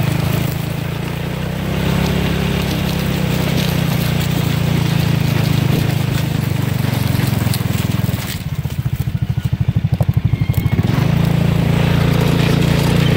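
Tractor's diesel engine running steadily at work, a low drone, with wind buffeting the microphone in a fluttering stretch about eight seconds in.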